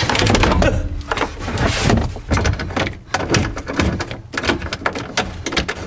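Irregular clunks, clicks and scraping as a Honda Civic Hybrid's IMA battery pack is worked into place in the car's trunk, metal and plastic parts knocking together as it is handled.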